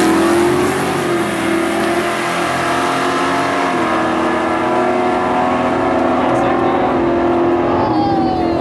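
Two drag-racing cars at full throttle accelerating away down the strip, engines running at high revs; the engine note drops at gear changes about a second in and again near four seconds.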